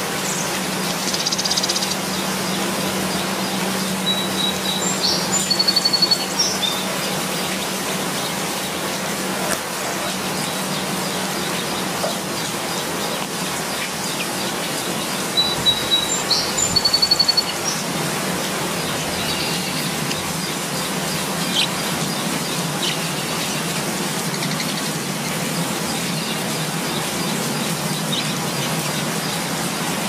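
Steady rain falling on leaves. A bird calls in short high trills a few seconds in and again around the middle.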